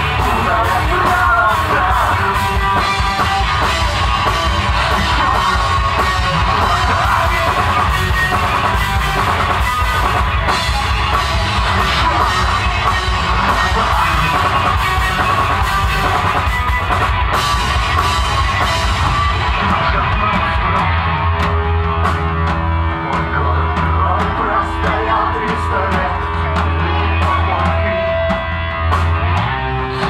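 Live rock band playing: drum kit with cymbals, electric guitar, bass guitar and vocals. About two-thirds of the way through, the cymbals drop out, leaving mostly bass and guitar.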